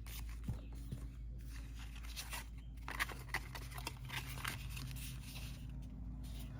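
Paper and cardstock being handled: scattered soft rustles and light taps over a steady low hum.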